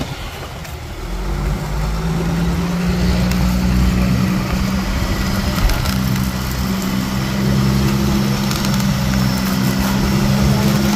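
A fishing boat's engine runs steadily as a low hum, over the rush of water along the hull. It is quieter for the first second or so, then settles at a steady level.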